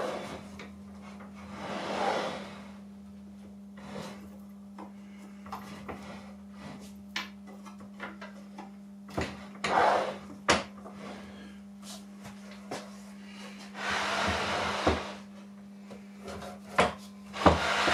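Router carriage of a homemade wooden planing jig being pushed by hand along its rails with the router switched off: a few rubbing, sliding swishes and scattered wooden knocks and clicks.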